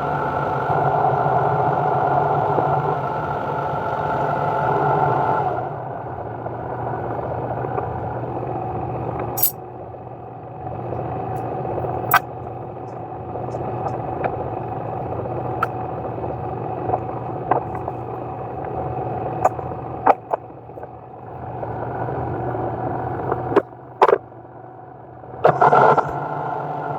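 A shop machine's motor running steadily with a constant hum, its higher part dropping away about five seconds in. Sharp clicks and metallic knocks are scattered through it, and the hum dips briefly near the end.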